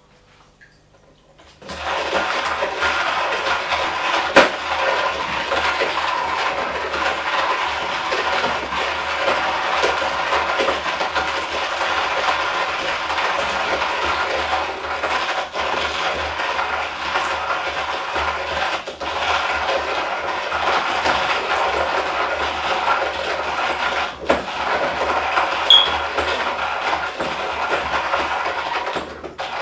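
Hario mini hand coffee grinder being cranked, its ceramic burrs crunching coffee beans in a steady grinding noise that starts about two seconds in, with a brief pause near the end.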